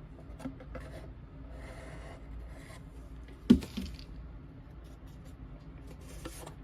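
Handling noises from board and paper craft pieces being worked on a tabletop: light rustles, scrapes and small clicks, with one sharp tap or knock about three and a half seconds in as the loudest sound.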